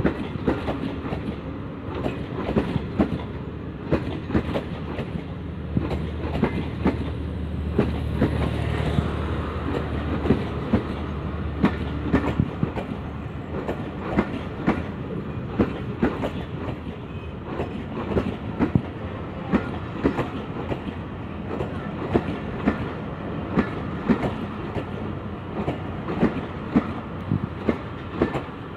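Pakistan Railways passenger coaches rolling slowly past along a platform, their wheels clicking over the rail joints in a long, uneven run of knocks. A low hum passes for several seconds in the first half.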